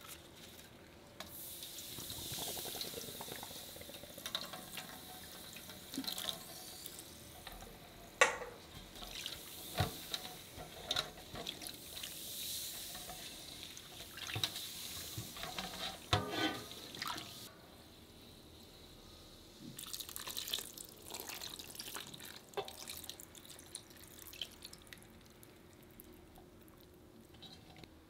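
Lemon-lime soda poured from a can into a stainless-steel mixing bowl, fizzing and splashing. A gloved hand then swishes the liquid around the bowl, with scattered small knocks and splashes. It stops for a moment about two-thirds of the way through, swishes again briefly, and goes faint near the end.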